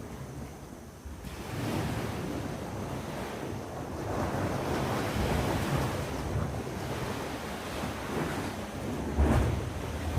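Sea waves washing onto the shore, swelling and ebbing in surges, with wind buffeting the microphone; a stronger wave surge hits a little after nine seconds.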